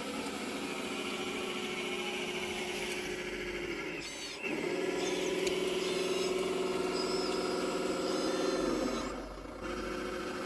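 Radio-controlled scale construction machine's electric hydraulic pump and motors whining steadily. It gets louder about four seconds in, dips briefly near the end, then picks up again, with faint high squeaks from the working gear in the middle.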